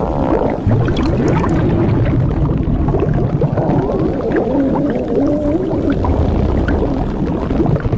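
Cartoon body-inflation sound effect: a continuous low rumble with gurgles and wavering tones that bend up and down.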